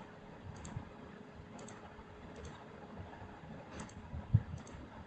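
Computer mouse button clicking: several short pairs of clicks spaced roughly a second apart, with a soft low thump a little past four seconds in.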